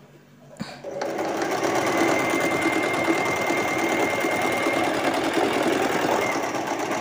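Domestic electric sewing machine stitching a hem through cotton fabric: a click about half a second in, then the machine picks up and runs at a steady fast rattle with a thin whine over it.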